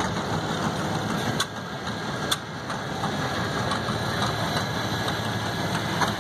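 International Cub Lo-Boy garden tractor's small engine running steadily at low speed as the tractor rolls slowly past, with a couple of light clicks in the first half.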